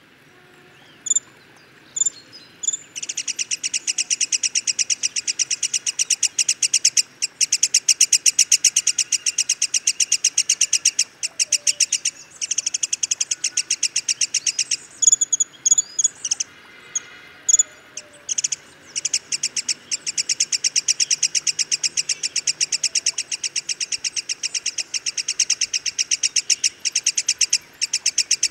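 Black-headed Sibia calling: a few single sharp chirps, then a long, fast, even rattle of high notes, about ten a second, broken by a few short pauses.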